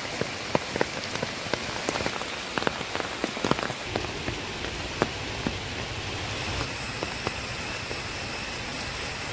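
Rain falling, with scattered heavy drops ticking sharply and irregularly, most thickly in the first few seconds. A thin, steady, high-pitched whine runs underneath and grows stronger about two-thirds of the way in.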